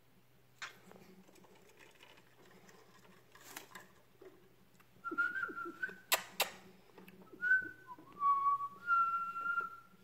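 Male cockatiel whistling a short run of clear notes from about halfway through, one dipping lower, and ending on a longer held note. Two sharp clicks in the middle of the whistling.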